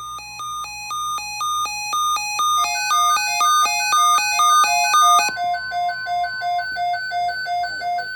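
Electronic alert tone: rapid beeps alternating between two pitches, fading in and growing louder, then switching to a new pair of alternating pitches about five seconds in.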